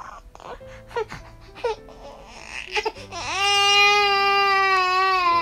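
Infant fussing in short whimpers, then about three seconds in breaking into one long, loud wail. It is a hunger cry, as the mother reads it.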